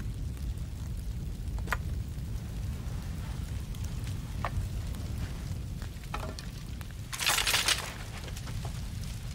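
Low rumble of burning fires with a few sharp crackles. About seven seconds in comes a brief, louder crash of noise lasting about half a second.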